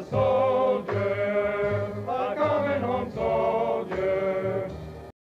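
A group of soldiers singing together in unison, in phrases of about a second each with short breaks between them. The singing cuts off suddenly near the end.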